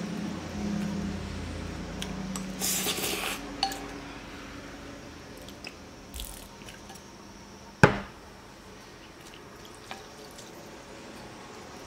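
Eating noodle soup from a glass bowl: small clicks and clinks of chopsticks and a ceramic spoon against the glass, with wet liquid sounds. There is a short hissing burst about three seconds in and one sharp knock about eight seconds in.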